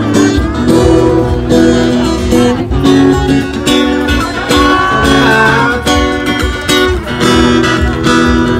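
Street busker strumming chords on an acoustic guitar while singing a pop song.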